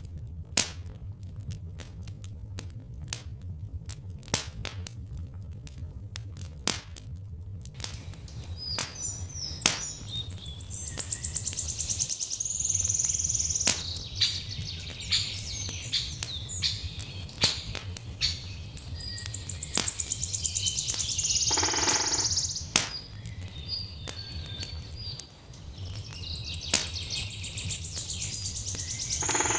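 Wood fire crackling, with sharp pops scattered over a low steady rumble. Birds chirp and sing from about eight seconds in, in several louder spells, the song being the loudest sound.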